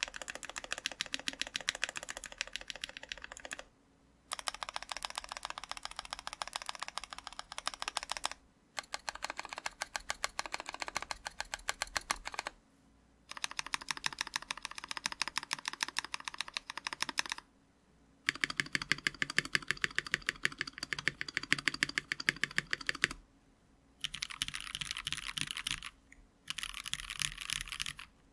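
Mechanical keyboard typed on quickly: a 60% board with lubed NovelKeys Cream linear switches on a brass plate, under GMK keycaps. Keystrokes come many to the second in runs of a few seconds, broken by short pauses.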